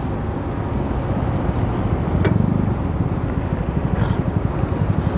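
Road traffic going by, with wind buffeting the microphone. There is a single sharp click about two seconds in.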